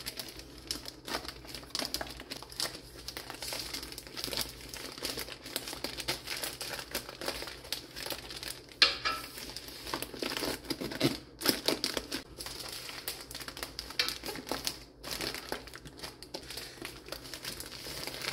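Unicorn 3T plastic spawn bags full of hydrated white millet crinkling and rustling as they are pushed and squeezed down into a Presto 23-quart aluminium pressure canner. The crinkling is irregular throughout, with one sharper knock about halfway through.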